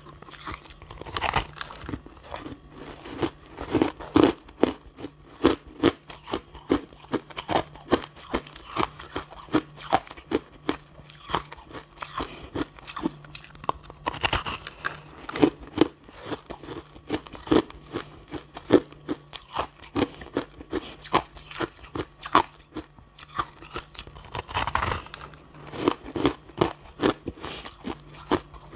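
Block of dyed, compacted crushed ice being bitten and chewed, a rapid run of crisp crunches several times a second, with louder bites now and then.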